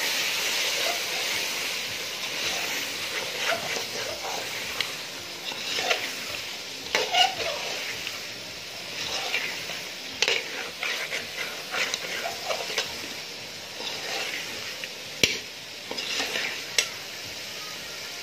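A metal spoon stirring chicken curry in a metal pot, scraping and clicking against the pot's sides and bottom, with the chicken sizzling as it cooks. Two sharper knocks of spoon on pot come near the end.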